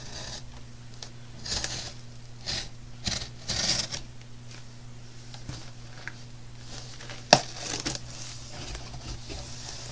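Box cutter blade scoring through packing tape on a cardboard box: a few short scratchy cutting strokes in the first four seconds, then one sharp click a little after seven seconds.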